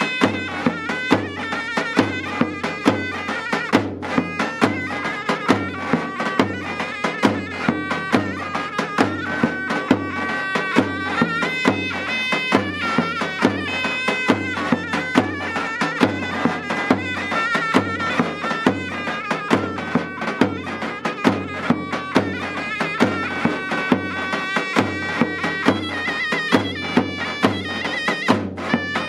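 Zurna (Turkish double-reed shawm) playing a folk melody over a davul, a large double-headed bass drum, beaten in a steady rhythm with a heavy stick.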